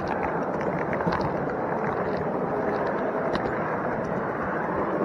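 Model railway wagon rolling along the track, heard from a camera riding on it: a steady rumble of the wheels with a few sharp clicks over the rail joints and pointwork.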